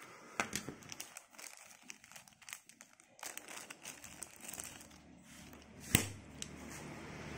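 Thin clear plastic bag crinkling and crackling as a diecast toy car is handled and pulled out of it, with one sharp click about six seconds in.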